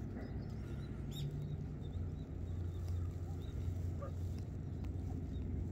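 Faint, scattered chirps of small songbirds over a steady low rumble.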